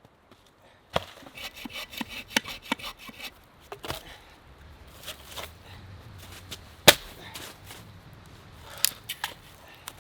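An axe chopping firewood: irregular sharp knocks of the blade into wood, starting about a second in, the loudest strike about seven seconds in.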